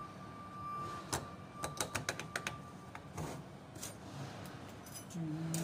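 Quick light metallic clicks and taps of car A/C compressor parts being handled and set down on a workbench, most of them in a burst about a second in, with a faint steady high whine under the first half. Near the end a man starts humming a tune.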